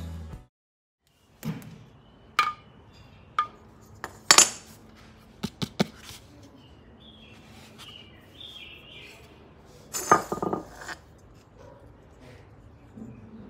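Music cuts off abruptly at the very start. Then come scattered sharp clinks and knocks as a woofer and a small amplifier board are handled and set down on a tiled floor, with a cluster of knocks near the end. Faint high chirps come in about the middle.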